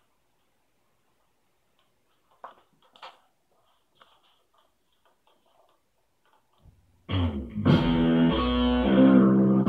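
Near silence with a few faint clicks, then guitar music comes in suddenly about seven seconds in and carries on loudly.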